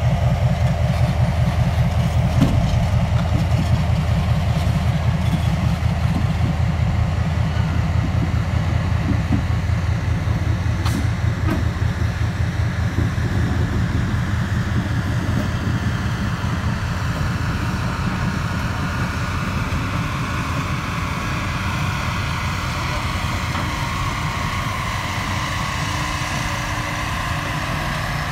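Passenger train rolling slowly across a steel girder bridge: a steady low rumble of the diesel locomotive and the cars' wheels on the bridge, growing gradually quieter as the train moves on, with an occasional sharp click.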